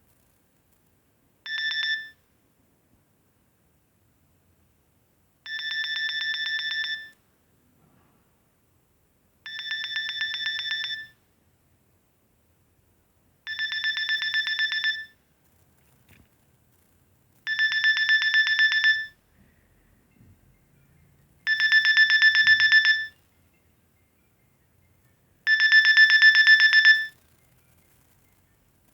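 Nokia 2610 mobile phone ringtone: a high, rapidly pulsing electronic ring sounding seven times, about every four seconds. Each ring lasts about a second and a half, except a short first one, and each is louder than the last.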